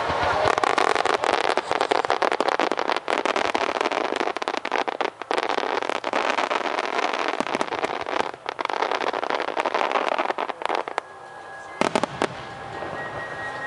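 Starmine fireworks going off in rapid succession: a dense, continuous crackling of many small pops and bursts that thins out about eleven seconds in, followed by a few sharp cracks.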